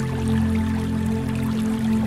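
Background music of held, sustained notes.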